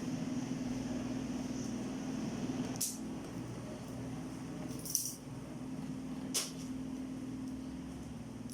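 A steady low hum with three short metallic clinks, the clinks about one and a half to two seconds apart.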